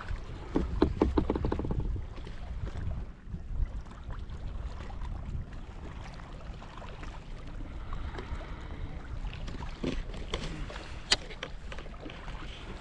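Kayak paddling on open water: paddle strokes and water splashing and dripping off the blades, a cluster of them in the first two seconds and a sharp knock about eleven seconds in, over a steady low rumble.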